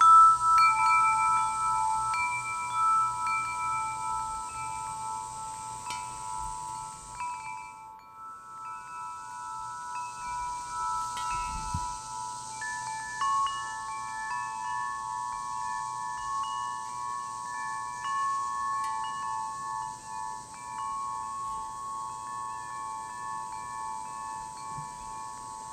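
Chimes ringing: several long, overlapping tones struck one after another, with a brief lull about eight seconds in.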